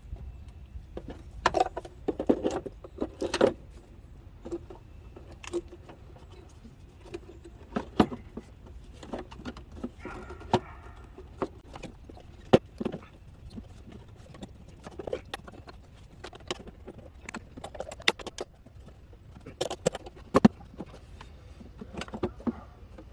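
Irregular metallic clinks, taps and knocks of hand tools and small parts being handled during engine work, with a few sharper knocks among them.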